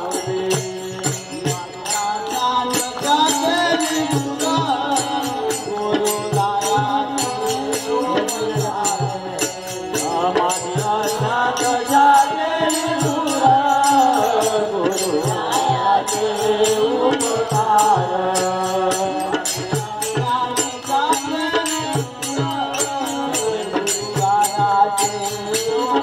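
Devotees singing a Marathi devotional bhajan to a steady percussive beat of hand claps and rhythm instruments.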